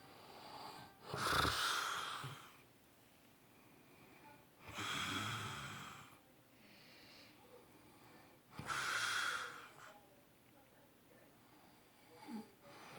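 A sleeping man snoring: three loud snoring breaths, about three and a half seconds apart, with quiet between them.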